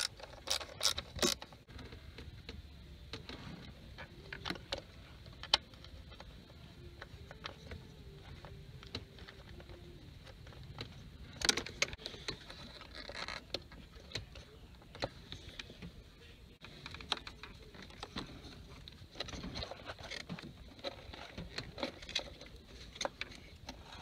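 Quiet, irregular clicks and small metallic taps of a ratchet and socket working the 7 mm bolt that holds a coil-on-plug ignition coil, and of hands moving among engine-bay parts, with a few sharper clicks near the start and one about halfway.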